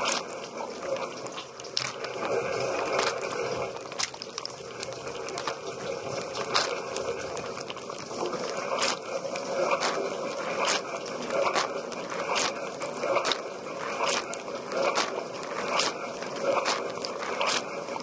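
Dishwasher wash cycle heard from inside the tub: water jets from the rotating spray arm splash steadily over the racks and the camera. A sharp spatter comes roughly once a second as the arm sweeps past.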